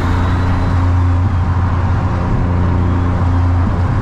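Single-turbo VQ35DE V6 of an Infiniti G35 coupe heard from inside the cabin at steady freeway speed: an even, loud low engine drone over road and tyre noise.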